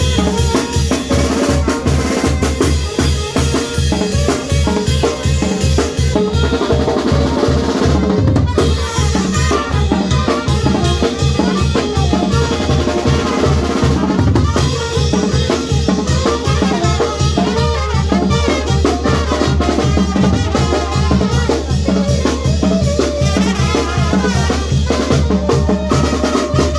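Loud dance music played through a sound system, with a steady, driving bass-drum beat under a busy melody.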